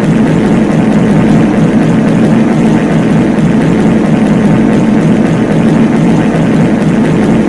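Dense pile-up of many overlapping reverberant fart sound effects, merged into one loud, continuous low rumble with no breaks.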